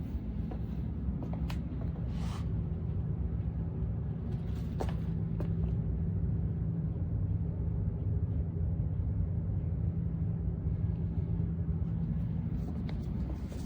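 Steady low mechanical hum with a constant low tone, and a few faint clicks scattered through it.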